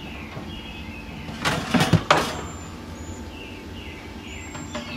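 Wire cooking rack of a Masterbuilt electric smoker rattling and clattering as it is slid into the cabinet: a quick cluster of metallic knocks and scrapes about a second and a half in.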